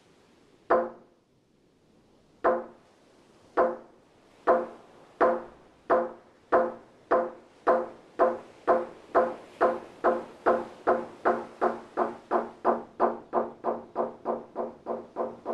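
Wooden semantron struck with a mallet: one knock, a pause, then single knocks that speed up steadily until they come about three a second. This is the accelerating call of a monastery semantron summoning monks to prayer.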